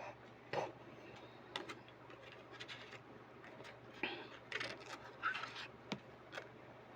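Faint, scattered clicks and brief rustles of oracle cards being handled and laid down on a table.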